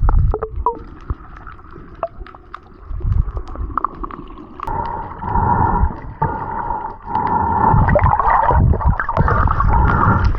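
Muffled water sounds heard through a submerged camera: low gurgling and sloshing swells with scattered clicks. About halfway in, a steady hum comes in and keeps on.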